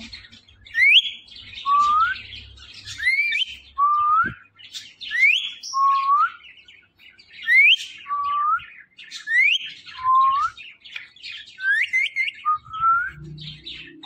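Caged ring-necked parakeet whistling a two-note phrase: a high rising whistle followed by a lower rising one, repeated about every two seconds and coming quicker near the end, with faint scratchy chatter between.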